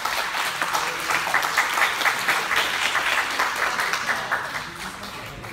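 Spectators applauding with many hands clapping, fading out toward the end.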